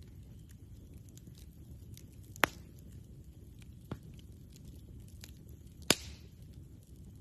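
Campfire crackling, with faint ticks and a few sharp pops from the burning wood: two loud pops a few seconds apart and a smaller one between them, over a low steady rumble.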